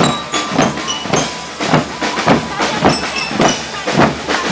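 A marching drum corps playing a steady beat on bass drums and snare drums, about two strokes a second.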